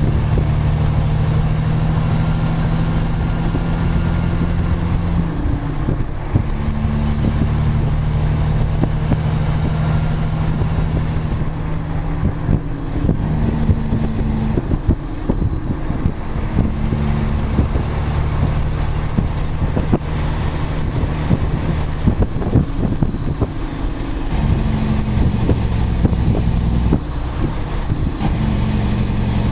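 Loaded Kenworth logging truck's diesel engine pulling under heavy load and working through the gears, its note dropping at each shift every few seconds. A high whine rises and falls with each gear change.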